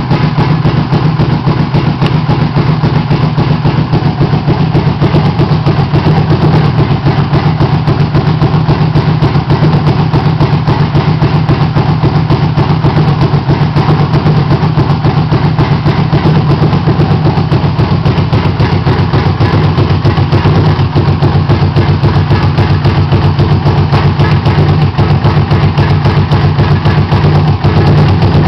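A 250cc Venox motorcycle engine idling steadily at an even pitch.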